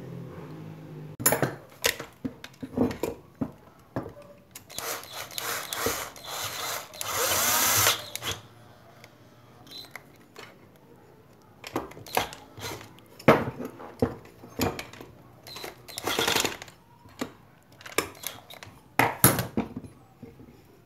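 Cordless drill with a long bit running in short bursts, driving the screws that close the housing of a rewound electric motor. The longest run, a few seconds in, ends in a rising whine. Sharp clicks and knocks of metal parts being handled come between the runs.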